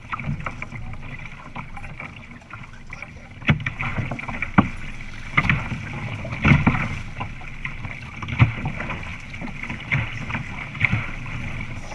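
Water rushing and splashing along the hulls of a Topcat sailing catamaran under way, with wind buffeting the microphone. Irregular sharp slaps and thumps of the hull against the water stand out over the steady wash.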